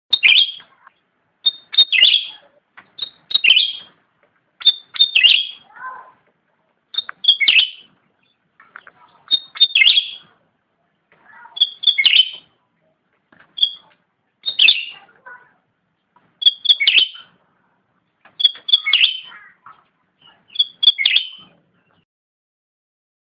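Cucak rante (cucak ranting) songbird calling a short phrase over and over, about once every two seconds: two or three quick high notes, then a short burst of chatter.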